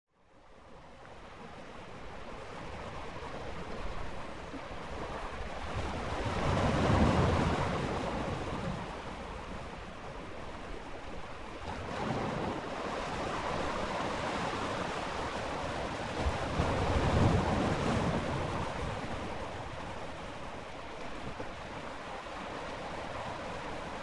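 Ocean surf: waves washing on a shore as a steady rush of noise that fades in at the start, with two louder breakers swelling up about ten seconds apart.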